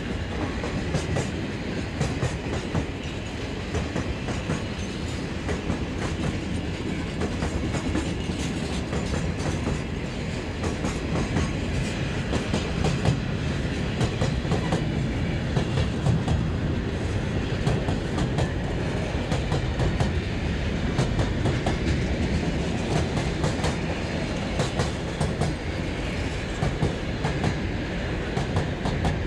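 Subway car running, heard from inside the car: a steady rumble with a continuous clickety-clack of the wheels over the rails.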